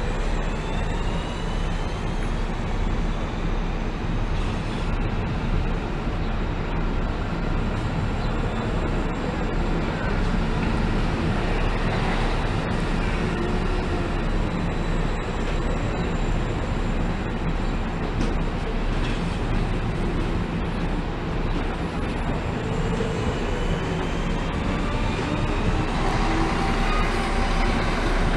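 Electric multiple-unit trains at a station platform: a steady rumble and hum with a faint electric whine that glides in pitch. The whine returns near the end as a Siemens Mireo electric train pulls in.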